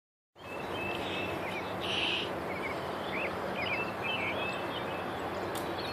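Small birds chirping in quick short calls over a steady outdoor background hiss, with one louder brief burst about two seconds in.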